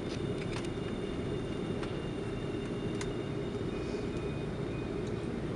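Steady cabin rumble of an Airbus A330-200 taxiing after landing, heard from inside the passenger cabin, with a faint high whine over it and a few faint clicks.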